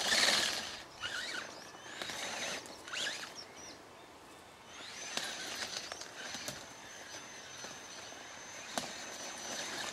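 Radio-controlled scale trail truck crawling over the course: a thin, high electric-motor whine that starts and stops with the throttle, over scratchy crunching of the tyres on dirt and rocks and a few sharp clicks.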